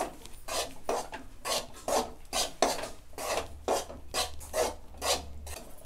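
Long steel spoon scraping and stirring gram flour as it roasts in ghee in a steel kadai. The strokes are short and even, about two a second.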